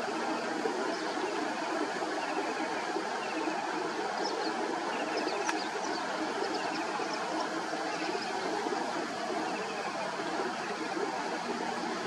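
Steady rushing outdoor wetland ambience over shallow water, with faint, short, high bird chirps in the background now and then.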